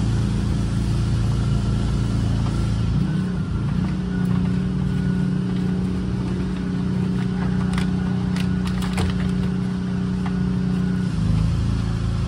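A steady motor hum, with a few light clicks around the middle.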